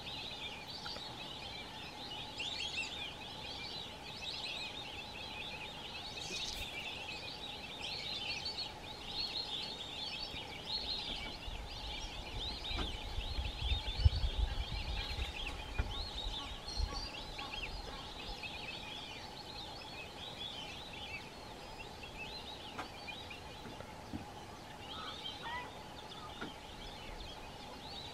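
A flock of white-faced whistling ducks whistling continuously, many high calls overlapping. A low rumble runs for a few seconds around the middle.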